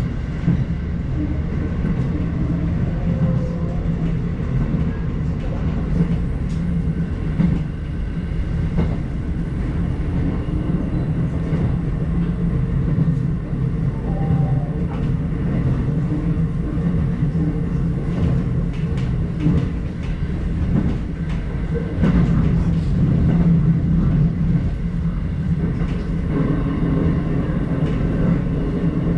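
Electric commuter train running along the line, heard from inside the front car: a steady rumble of wheels on rail, with clicks over rail joints now and then.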